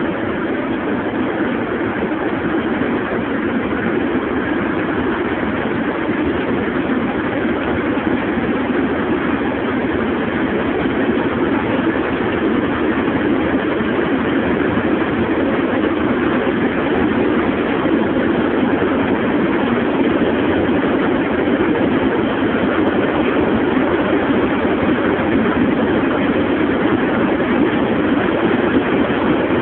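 Steady rush of wind, tyre and engine noise inside a Mercedes-Benz CL's cabin at about 250 km/h, growing slightly louder as the speed creeps up.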